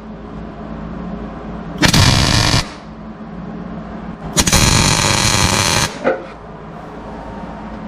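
Wire-feed MIG welder arcing in two tack welds on steel brackets, tacking nuts on: a short crackle of under a second about two seconds in, then a longer one of about a second and a half from about four and a half seconds.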